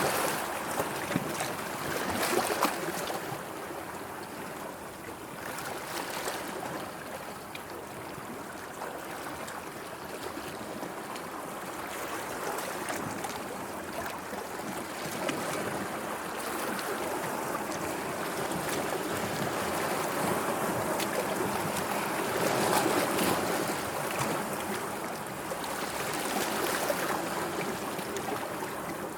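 Sea water washing and lapping, swelling and easing irregularly, with small splashes throughout.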